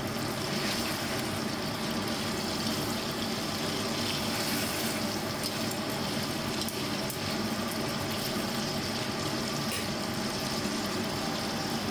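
Chicken thighs sizzling steadily in oil in a stainless steel wok, pan-fried on mild heat until they brown, with a few light clicks of metal tongs against the meat and pan.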